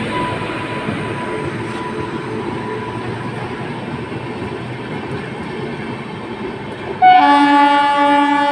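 Express train coaches rolling past on the rails. Near the end, an Indian Railways electric locomotive's horn sounds a loud, sustained blast that keeps on going.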